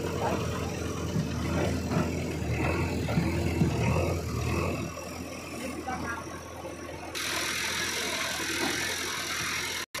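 Diesel engines of a JCB 3DX backhoe loader and a Swaraj 735 FE tractor idling steadily. A steady hiss joins about seven seconds in.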